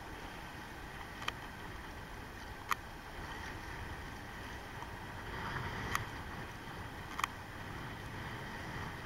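Wind and rough, choppy sea water, with four short sharp clicks spread through it.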